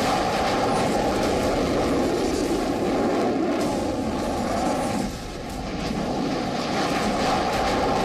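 Twin engines of a carrier fighter jet at full afterburner as it launches off the deck: a loud, steady rushing noise that dips briefly about five seconds in and then builds again.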